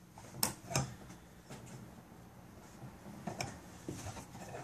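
Sharp metal clicks and taps from a Japanese Type 11 light machine gun's buttstock and receiver being handled during reassembly. Two clearer clicks come about half a second in, followed by a few fainter ones later.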